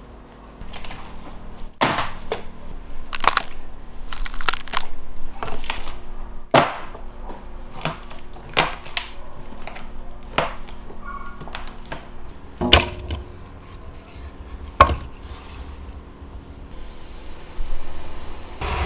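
Irregular sharp knocks and cracks of wood, roughly one every second or two, a few of them loud, over a faint steady hum.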